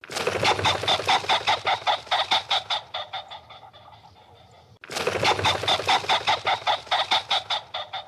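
Chicken clucking in a rapid run of calls, about five a second, loud at first and fading away; a second run starts abruptly about five seconds in and fades the same way.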